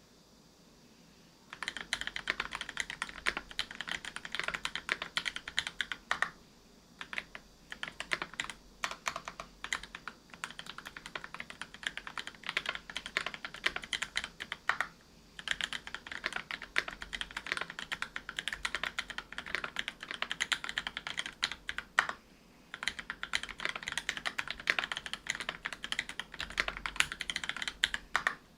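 Typing on a Whale 75 mechanical keyboard with lubed Gateron Silver Snow 65 g tactile switches, a brass plate and GMK keycaps: quick, continuous keystroke clacks. They start about a second and a half in and break off in a few brief pauses.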